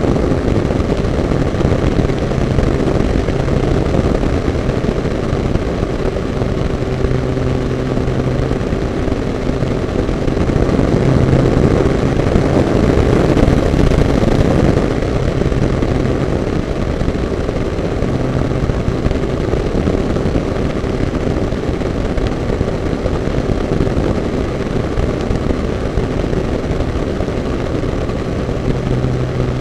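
Radio-controlled model airplane's motor and spinning propeller running steadily in flight, heard close up from a camera on the nose, with a constant rush of air. Its low hum comes and goes a little and swells slightly around the middle.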